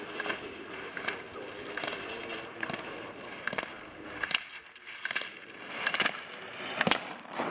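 Slalom skier carving turns on hard-packed snow, the ski edges scraping, with a sharp clack about every 0.8 s as the gate poles are knocked aside.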